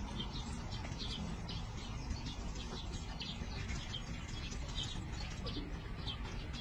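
Small birds chirping in short, repeated high notes, about two or three a second, over a steady low rumble.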